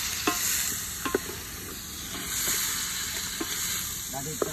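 Meat and onions frying in ghee in a metal pot over an open wood fire, sizzling steadily, with a few sharp clinks of a spoon against the pot as it is stirred.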